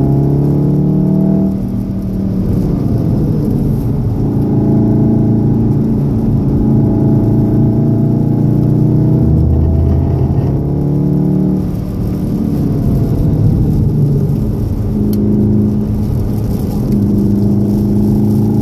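Engine of a VW Golf VII R, a turbocharged 2.0-litre four-cylinder, heard from inside the cabin while driving. Its note rises and falls with the throttle and drops away briefly about two seconds in and again about twelve seconds in.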